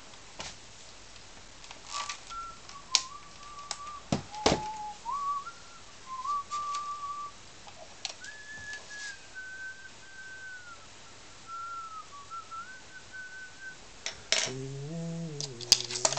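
A man whistling a wandering tune to himself, with a few sharp clicks and knocks about a third of the way in.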